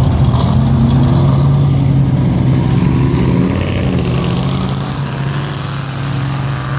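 Car engine running steadily with a constant low hum.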